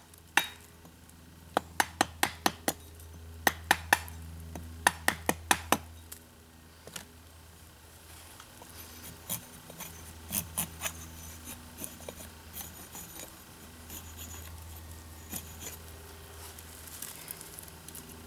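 A hammer striking the poll of a loose axe head held against a wooden handle blank, driving the bit down to shave the wood. Sharp metallic clinks come in quick runs of three to five through the first six seconds or so. After that there is only quieter scraping and light ticking as the axe head, held in the hand, pares the handle.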